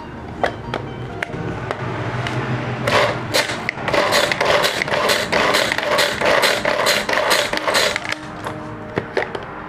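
A hand-pulled cord food chopper is pulled over and over, about twice a second for some five seconds from about three seconds in. Each pull spins its blades with a whirring zip as they cut through cabbage, and a few sharp clicks come before the pulls begin. Background music plays throughout.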